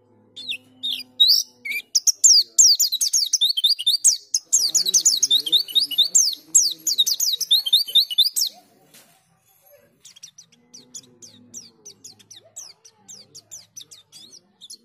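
White-eye (pleci) singing a fast, chattering song of high, quick notes, loud for the first eight seconds or so, then softer after a short pause.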